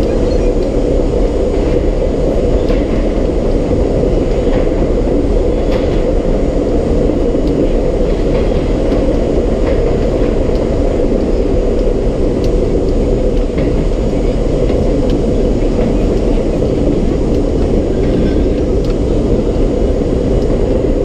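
R32 subway car running at speed, heard from inside the car: a steady, loud rumble of wheels on rails and running gear, with a few faint clicks.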